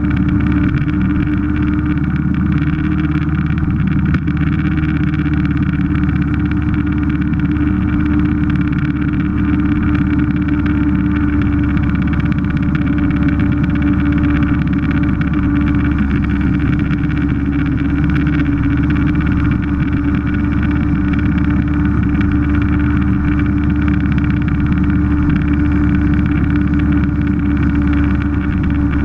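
Vintage scooter's small engine running steadily at cruising speed, with a constant drone and wind rush at road speed.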